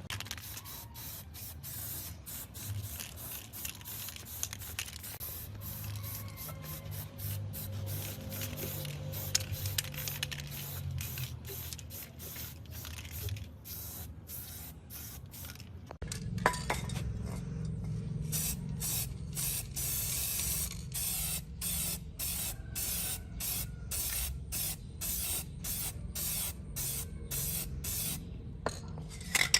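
Hissing spray in many short bursts, coming about twice a second in the second half.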